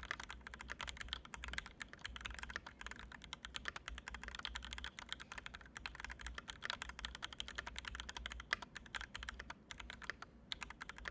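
Typing test on a Canoe gen2 mechanical keyboard with Original Aspiration linear switches lubed with Krytox 205g0 and fitted with switch films: rapid, continuous keystrokes clacking, with a brief pause about ten seconds in.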